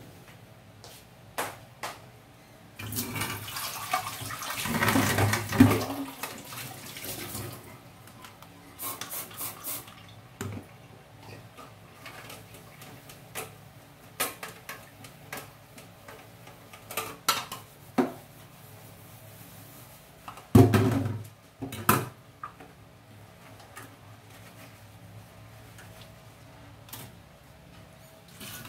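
Kitchen sink tap running for a few seconds, then scattered clinks and knocks of dishes and utensils, with one loud clunk about two-thirds of the way through.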